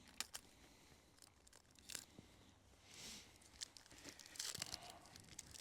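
Foil booster pack wrapper being torn open and crinkled, faint, with scattered small clicks and a couple of short rustling tears.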